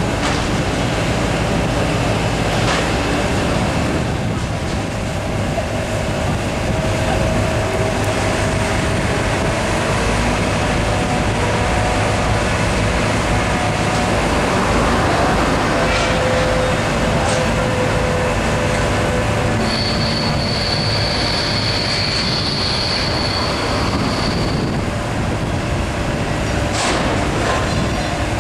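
Loud, steady rumble of heavy vehicles and machinery. A high-pitched squeal holds for about five seconds a little past the middle, and a few brief clicks are scattered through it.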